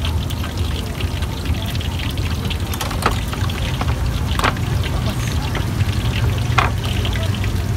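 Stone pestle (ulekan) grinding ketoprak spice and peanut paste against a ceramic plate: steady scraping and fine tapping, with a few sharper clicks of stone on plate, over a steady low hum.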